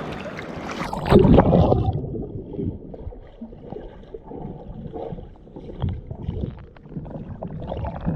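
A loud splash of seawater about a second in, then the muffled, low rumbling and sloshing of water heard with the action camera submerged in the surf.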